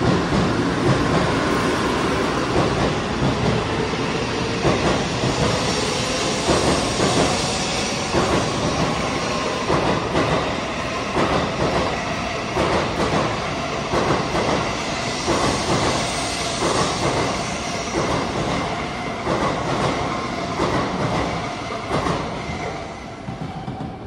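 Shinkansen bullet train running past close by on the adjacent platform track: a steady rumble of wheels on rail with a regular clacking as its bogies pass over the track, easing off slowly toward the end.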